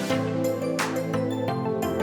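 Background music: an electronic track with held chords and regular drum hits.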